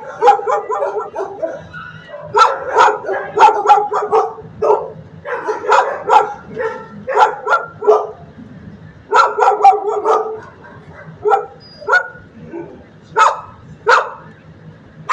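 Shelter kennel dogs barking: volleys of rapid barks with short pauses between them, then single barks about a second apart near the end.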